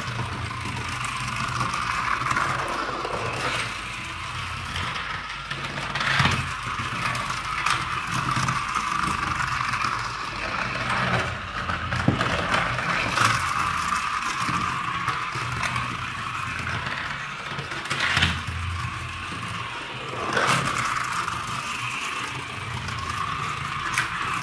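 Toy safari jeep running on its own along a snap-together plastic track, its small motor whirring steadily while the wheels rattle over the track segments. A few sharp knocks break in along the way.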